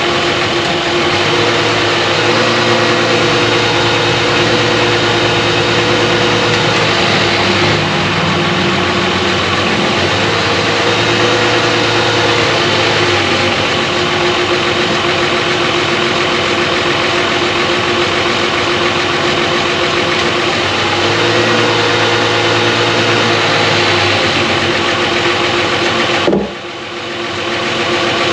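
Chrysler 300's engine idling, just after a transmission filter change and ATF refill. Its note steps up and down a few times as the load on it changes. Near the end a single knock comes, and the sound briefly drops.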